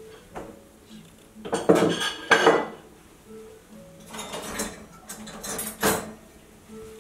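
Chopsticks and dishes clattering: chopsticks knocking against a ceramic plate and stainless steel bowls while food is arranged. The clinks come in two clusters, about one and a half seconds in and again from about four to six seconds in.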